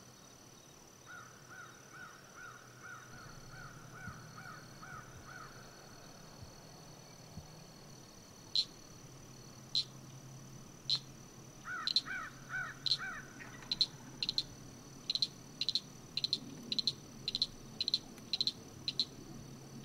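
Field wildlife sounds: an insect's steady high trill runs throughout. A run of about nine short calls comes in the first few seconds and a quicker run of four about twelve seconds in. From about eight seconds in, loud, sharp, high chip-like calls repeat, faster toward the end, and are the loudest sounds.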